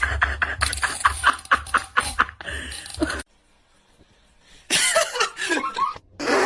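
A person laughing hard in quick repeated bursts for about three seconds, cut off suddenly. After a near-silent gap, a further short stretch of vocal sound with wavering pitch comes in.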